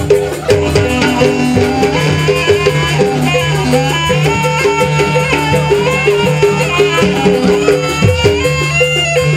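Jaranan dance music from a live Javanese ensemble: a reedy wind instrument plays a winding, sliding melody over a fast repeating pattern of short metallic notes and a sustained low gong-like tone.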